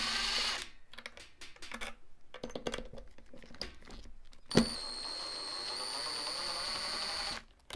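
Cordless drill-driver backing screws out. The drill runs briefly at the start, followed by a few seconds of scattered clicks and taps. About four and a half seconds in there is a sharp knock, and the drill then runs steadily for about three seconds before stopping.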